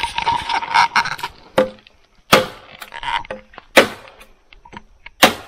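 Machete chopping a green bamboo pole: a quick flurry of lighter strikes, then three hard chops about a second and a half apart, each leaving a short ringing note.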